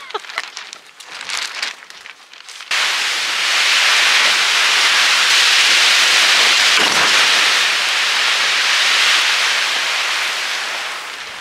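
Hail and rain coming down: scattered sharp ticks of stones striking at first, then, about three seconds in, a sudden dense steady downpour hiss that eases slightly near the end.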